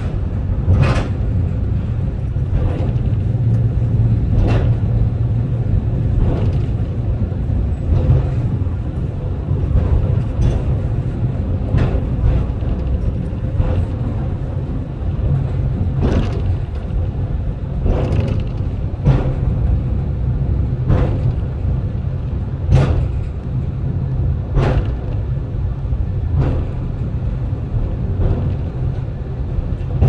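Takao Tozan Railway cable car running downhill: a steady low rumble from the car on the rails, with a sharp click about every two seconds as it rolls along the track.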